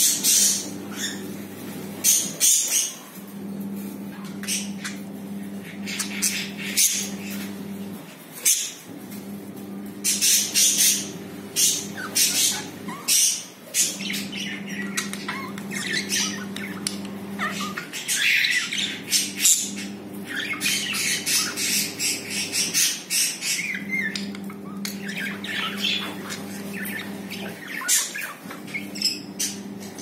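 Budgerigars chattering: a steady stream of short, sharp chirps and squawks. A faint low hum runs underneath and breaks off briefly every few seconds.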